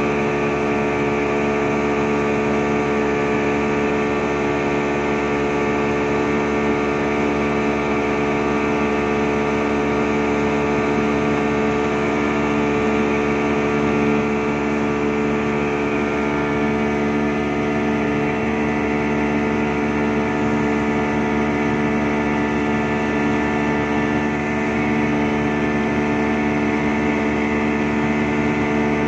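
Yamaha 200 hp outboard motor running steadily at high speed while driving a speedboat, heard close up at the stern: a constant engine drone with a whine, unchanging in pitch throughout.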